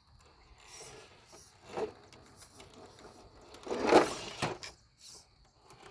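GMADE RC crawler truck clambering over an obstacle, its tyres and chassis scrabbling: a short scrape about two seconds in and a louder, longer one about four seconds in.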